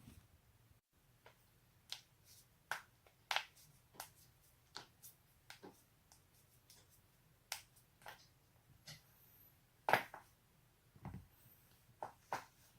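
Joints being cracked: a string of about twenty sharp pops and cracks at irregular intervals, the loudest about ten seconds in.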